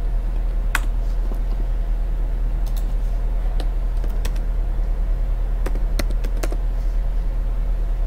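Computer keyboard keys clicking in scattered single keystrokes, with a quick run of them about six seconds in as a short word is typed. A steady low hum runs underneath.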